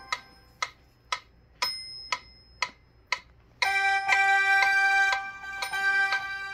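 Electronic keyboard's metronome ticking evenly about twice a second. About three and a half seconds in, a loud held chord comes in on the keyboard, with the ticks continuing under it.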